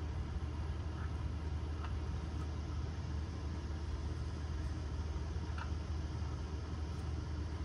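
A steady low engine hum, with a few faint short ticks.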